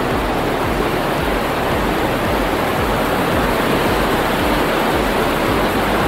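Waterfall in very heavy flow: a loud, steady rush of falling water, the flow swollen by what is probably high rainfall.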